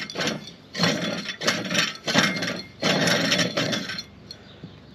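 A worn-out automotive AC compressor being turned over by hand at its clutch hub, noisy from the inside, in about four strokes that stop about four seconds in. The owner takes the noise for a bearing inside the compressor that has come apart.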